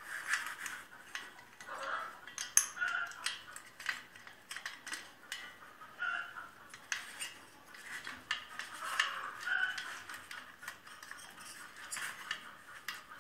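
Hand tools and metal engine parts clinking and tapping in a run of irregular light clicks during reassembly of a small mower engine.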